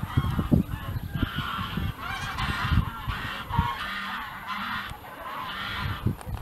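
Farmyard animals calling over one another, a rapid run of overlapping honking or bleating calls, with irregular low thumps underneath.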